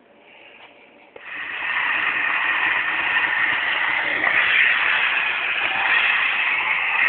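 Audio of a monster truck stadium show coming from laptop speakers: a loud, steady, tinny noise of trucks and arena that starts suddenly about a second in.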